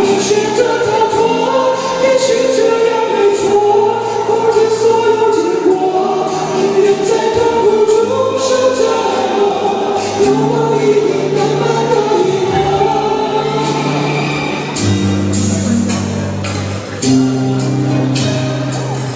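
A man singing a Mandarin pop ballad over backing music. In the later part the voice drops out and the backing music plays on with long held chords.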